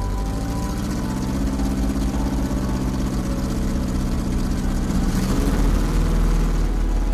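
Small propeller-plane engine running steadily, growing louder near the end.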